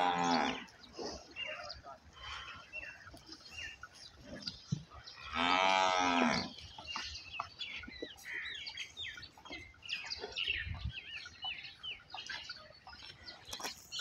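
Nili-Ravi water buffaloes lowing: one call trailing off right at the start, and a second call of about a second midway through. Many short high chirps sound between the calls.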